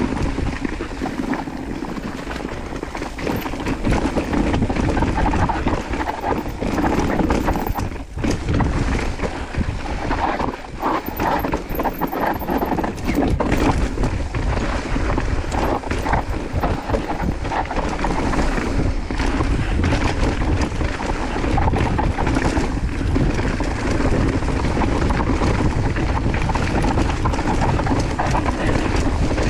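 Mountain bike ridden fast down a rough dirt trail: tyres running over dirt and rocks while the bike rattles and knocks over bumps, with a steady low wind rumble on the microphone.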